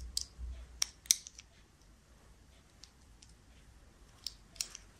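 Scattered light clicks and snips as a small advent-calendar gift and its packaging are handled: several in the first second or so, then two more near the end.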